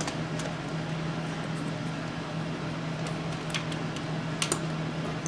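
Steady low machine hum, with three light clicks in the second half.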